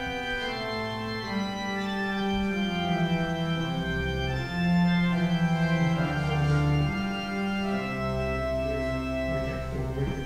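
Church organ playing slow music of held chords, with a deep bass note that comes in partway through and again near the end.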